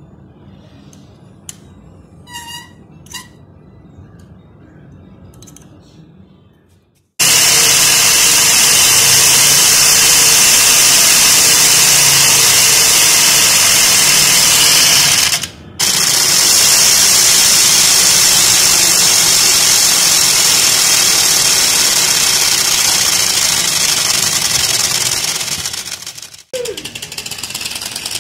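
A few clicks and short squeaks while the rear wheel is fitted with a noise-maker. About seven seconds in, a loud, continuous rattling buzz starts suddenly: the bicycle's rigged device is being worked to make a motorbike-like engine sound. The buzz drops out briefly around the middle and dies away near the end.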